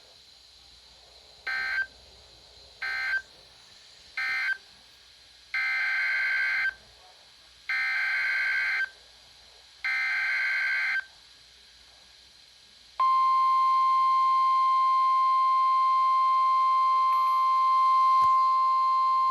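Emergency Alert System data bursts: three brief buzzy end-of-message bursts, then three longer header bursts about a second each. About two-thirds of the way in, a loud steady single-pitch alert tone of about 1050 Hz starts, the weather radio warning tone that opens the tornado warning.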